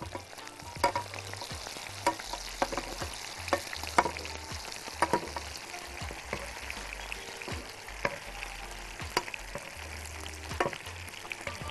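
Kofta meatballs sizzling in butter and oil in a frying pan while they are turned one by one, with a metal fork and spoon clicking and scraping against the pan many times over the steady sizzle.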